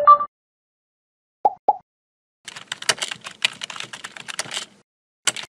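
Computer keyboard typing sound effect: a fast run of key clicks lasting about two seconds. Before it come a short chime and two quick blips, and one more single click follows near the end.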